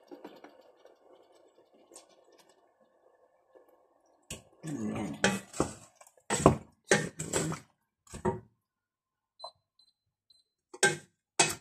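Wooden spoon stirring chicken pieces in a stainless steel pot: a run of short, loud stirring strokes from about four seconds in, a pause, then two more near the end.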